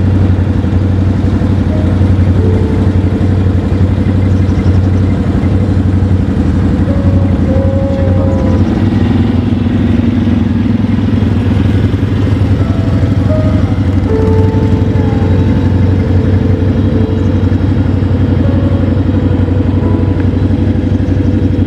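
Motor vehicle engine running steadily as the vehicle drives along, a loud unbroken low drone.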